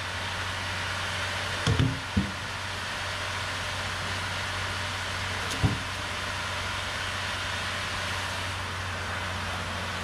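Steady low engine hum, with wooden knocks of logs being set down on a truck's load: a few close together about two seconds in and one sharp knock a little after five seconds.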